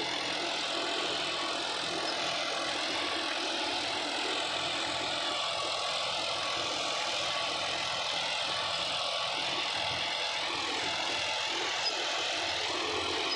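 John Deere 5405 tractor's three-cylinder diesel engine running steadily under load, held at about 1800 rpm while pulling a 20-disc harrow through tilled soil.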